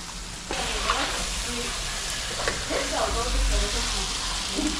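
Hassar fish going into a pot of hot curry: a sizzle that starts suddenly about half a second in and keeps on steadily.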